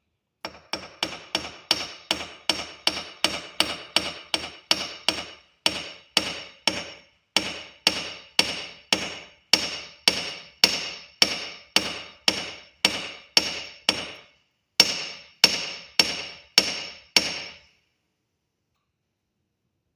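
Hammer striking copper wire on a steel anvil, a steady run of sharp blows at about two a second, each ringing briefly. There is a short pause before a final handful of strikes, and then the hammering stops.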